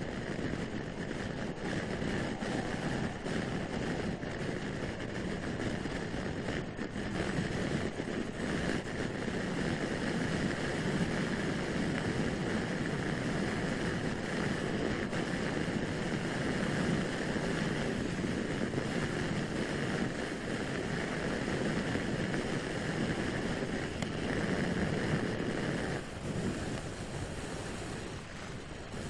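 Wind rushing over the camera together with a motor scooter's engine and tyres running steadily at road speed, easing slightly near the end.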